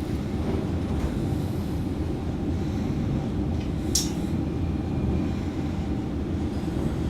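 Reunion Tower's elevator car descending fast, a steady low rumble, with a brief high hiss about four seconds in.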